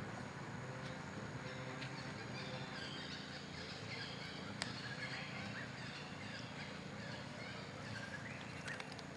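Outdoor ambience: many short, high chirping or squeaking animal calls over a steady low hum, with a single sharp click about halfway through.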